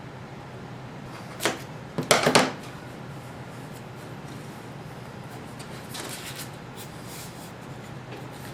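Blue painter's tape being pulled off the roll and pressed onto a wooden board: a few short ripping and rustling sounds, the loudest about two seconds in, over a faint low hum.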